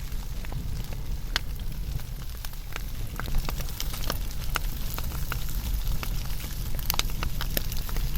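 Wood fire burning, a steady low rumble of flames with frequent, irregular sharp crackles and pops from the burning wood, several coming close together about seven seconds in.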